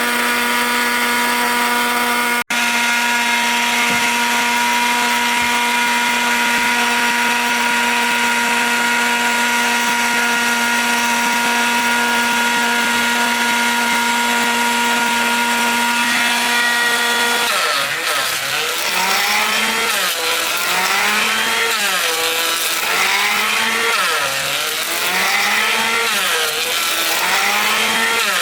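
A woodworking power tool's motor running at a steady high pitch. About two-thirds of the way through, its pitch starts rising and falling over and over, roughly every second and a half, as the tool is loaded and released.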